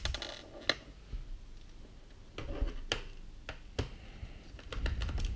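Scattered sharp clicks and taps, irregularly spaced, from a small screwdriver working screws out of an Acer Aspire E1-531 laptop's plastic bottom cover and from handling the case.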